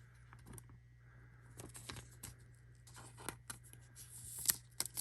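Soft plastic rustling and scattered small clicks as a trading card is slid into a plastic card sleeve, the sharpest click about four and a half seconds in, over a faint steady low hum.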